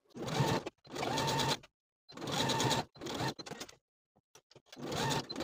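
Computerised sewing machine stitching in several short runs with brief silences between them, with a few light clicks about four seconds in, topstitching a pocket seam through heavyweight linen-blend fabric.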